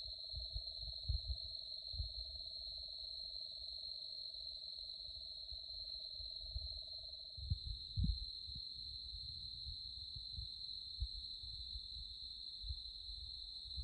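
Night insects, likely crickets, keeping up a steady high-pitched trill. Under them a lower, steady drawn-out call stops about halfway through, and low thumps and rumbles, likely wind or handling on the microphone, come and go.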